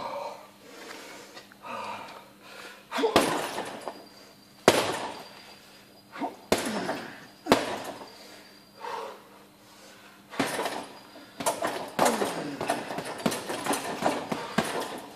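Heavy punching bag being hit with boxing gloves: single hard blows a second or two apart, then a fast flurry of punches over the last few seconds.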